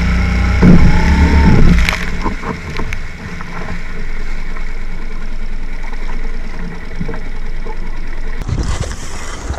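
Small Mercury four-stroke outboard running as the skiff moves through choppy sea, with water splashing and slapping against the hull. A heavy low rumble for about the first two seconds settles into a steadier one, and there is a burst of splashy noise near the end.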